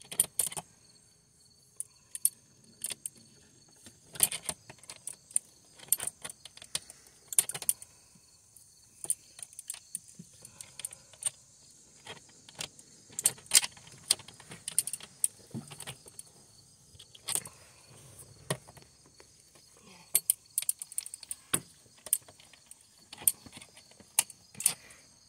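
Irregular metallic clicks and clinks of steel locking pliers gripping, turning and knocking against a metal hose clamp and fittings on an engine's intake.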